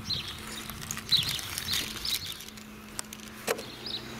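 Small birds chirping in short, repeated calls, with one sharp click about three and a half seconds in.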